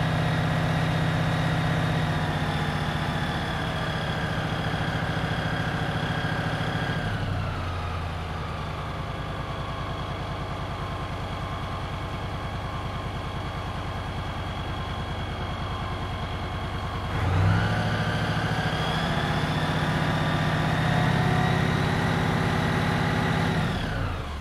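Fire engine's engine running at raised speed, dropping back to a lower idle about seven seconds in, then revving up sharply again near the seventeen-second mark and holding before winding down at the end, with a steady high whine alongside.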